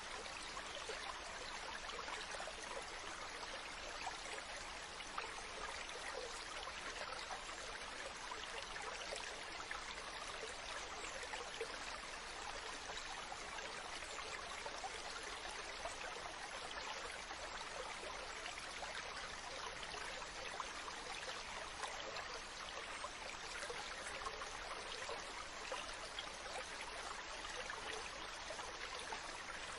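Steady running water, like a flowing stream, with a constant rushing wash and small scattered splashes.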